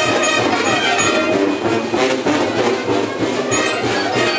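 Guatemalan procession brass band playing a son, brass carrying the melody.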